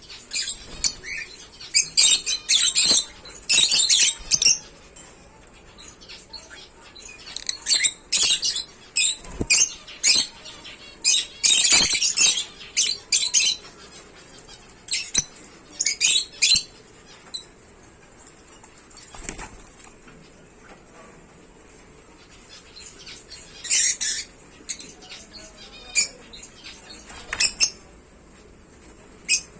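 African lovebirds giving shrill, chattering bursts of calls in irregular clusters, with wings fluttering, and a few sharp knocks.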